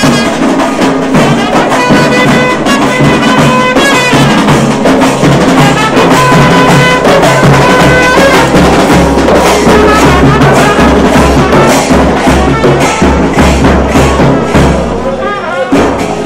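Procession street band playing: a trumpet holds and repeats melody notes over loud, fast drumming.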